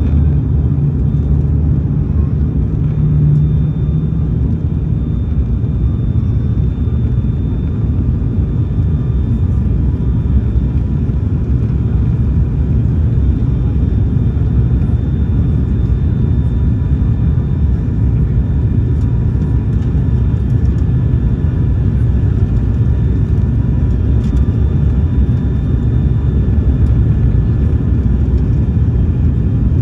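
Cabin drone of an ATR 72-600 in flight: the steady low rumble and hum of its twin Pratt & Whitney Canada PW127-series turboprop engines and propellers, heard from inside the passenger cabin. A low propeller tone stands out more strongly for the first few seconds, then settles into the even drone.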